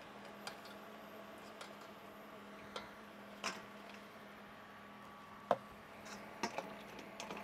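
Scattered light clicks and knocks of a slotted spoon and crisp fried loukoumades against a stainless steel pot and bowl, the loudest about five and a half seconds in, over a faint steady hum.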